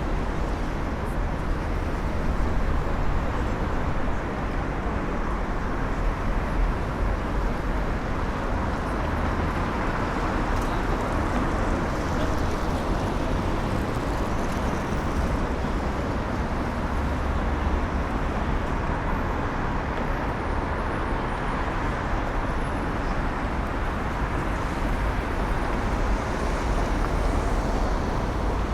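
Busy city street ambience: a steady rumble of passing road traffic, with faint, indistinct sounds mixed in.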